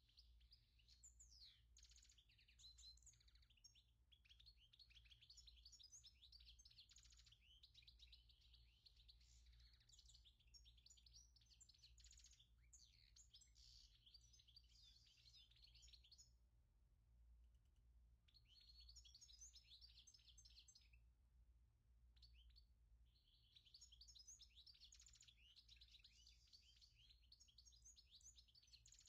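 Faint twittering of a small bird: rapid, quick-sweeping chirps in three long bouts with short breaks, over a low steady hum.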